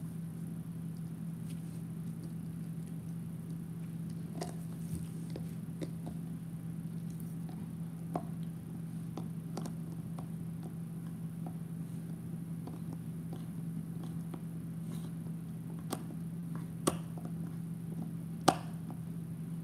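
Bernese mountain dog gnawing a chew bone: scattered clicks and crunches of teeth on the bone, a few sharper ones near the end, over a steady low hum.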